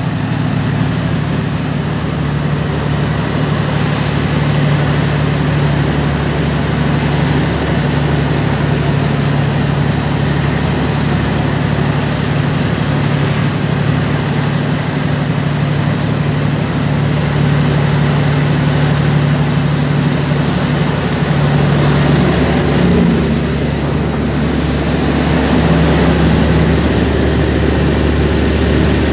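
The Cummins ISX15 diesel engine of a Kenworth T800 tractor-trailer running steadily: a continuous low drone with a thin high whistle above it. The engine note shifts briefly about three-quarters of the way through.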